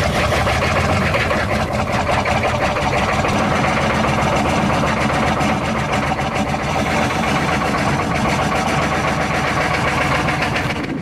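6.5 L V8 diesel engine idling steadily just after a cold start, heard close at the tailpipe, with a fast, even clatter.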